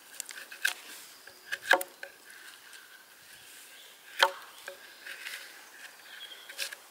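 A bushcraft knife shaving and scraping the surface of a resinous wooden board smooth, taking off splinters. It comes as a few separate sharp strokes, the loudest about two seconds in and just after four seconds.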